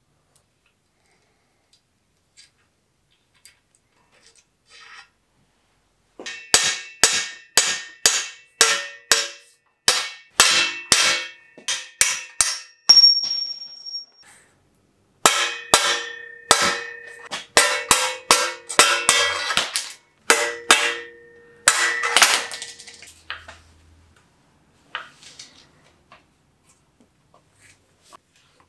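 Sharp metal-on-metal strikes, about two a second, come in two runs of several seconds with a short break between. Each blow leaves a ringing tone.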